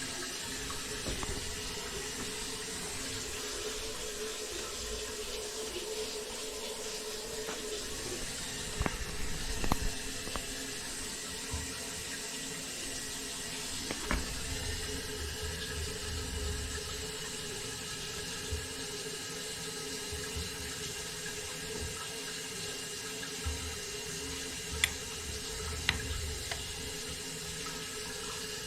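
Faucet running water steadily into a sink, a test run of the repaired sink for leaks, with a few light clicks or knocks along the way.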